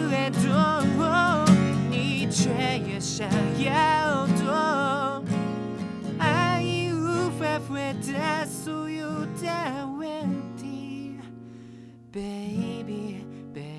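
Outro of an acoustic guitar song: strummed and picked acoustic guitar chords with a wordless, wavering vocal melody over them. The music fades after about 10 s, and a single new chord sounds about 12 s in.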